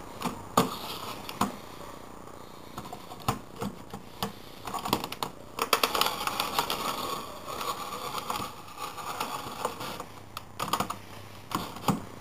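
Rotary paper trimmer's cutter head sliding along its rail and slicing through thin cardboard: a crackling scrape through the middle, with scattered clicks throughout.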